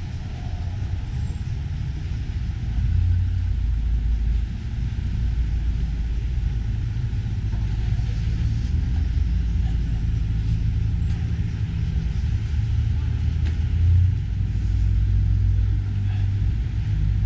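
Steady low rumble of outdoor street ambience, with distant traffic and wind on the microphone blended together.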